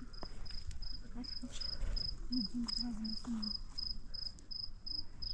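A cricket chirping steadily, short high-pitched chirps at an even pace of about two to three a second, with scattered faint clicks behind it.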